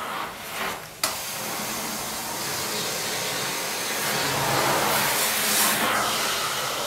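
Carpet steam-cleaning extraction wand hissing steadily as it sucks air and water from the carpet. The rush dips briefly and comes back with a sharp click about a second in, and grows louder around the middle as the wand is pulled across the carpet.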